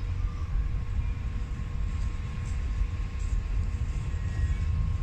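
Steady low rumble inside the cabin of a Boeing 777-200ER airliner, with a faint steady hum above it.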